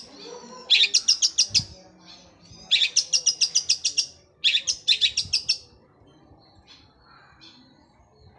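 Long-tailed shrike (cendet) singing in three rapid-fire bursts of high, evenly repeated notes, about ten a second and each about a second long, the machine-gun delivery likened to a sewing machine. Softer scattered chirps follow near the end.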